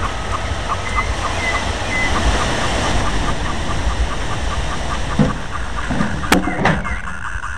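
Strong wind gusting through tree foliage and buffeting the microphone with a low rumble, with a faint thin whistle over it. A faint tone pulses about four times a second, and a couple of sharp knocks sound about six seconds in.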